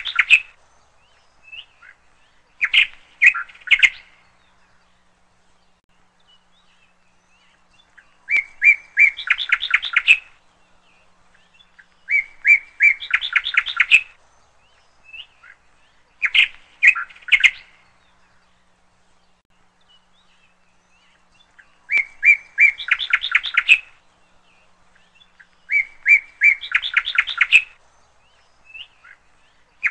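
A small songbird singing the same short chirping phrase again and again. Each phrase is a few separate notes running into a quick string of chirps, lasts about two seconds and comes back every few seconds.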